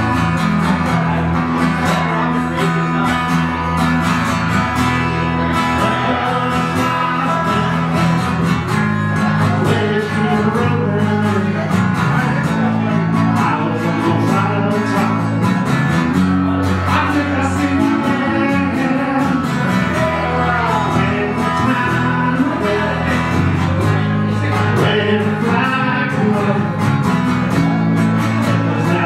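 Two guitars playing a song live, strummed and picked over steady chord changes.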